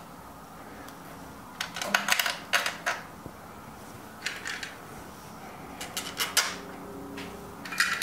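Small screws, a nut and hand tools handled on a work surface, giving four short bursts of light clinks and rattles.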